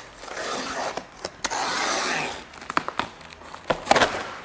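Packing on a cardboard scooter carton being cut and torn open: two long rasping tears, then a few sharp clicks and knocks near the end.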